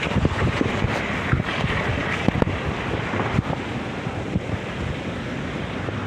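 Strong hurricane wind buffeting the microphone in irregular gusts, over the steady rush of heavy surf.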